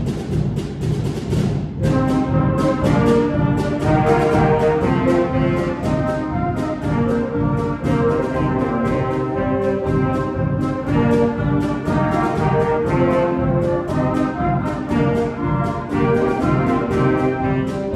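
School concert band playing: brass and woodwinds sound a melody over a steady drum beat, with the fuller melody coming in about two seconds in.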